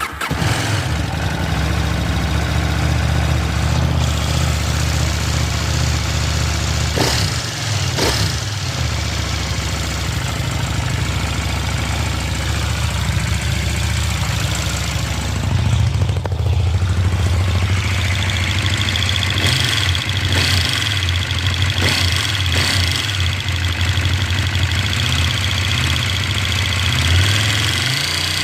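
KTM 790 Duke's parallel-twin engine idling, with the clicking and rattling that the owner questions even though the valve clearance has just been measured within spec. There are a couple of sharp knocks about seven and eight seconds in, and a high steady whine joins in the second half.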